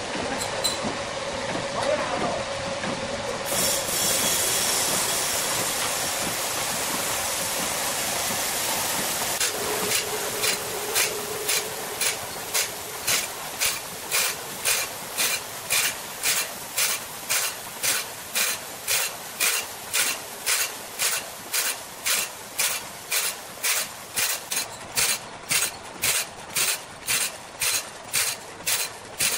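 Automatic band saw blade sharpener at work: the motor-driven abrasive wheel runs with a steady hiss at first, then from about ten seconds in grinds the wide sawmill band blade tooth by tooth, a regular grinding stroke about one and a half times a second.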